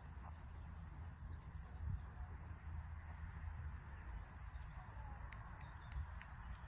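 Steady low rumble of wind on the microphone, with a few short, faint bird chirps and two soft low bumps about four seconds apart.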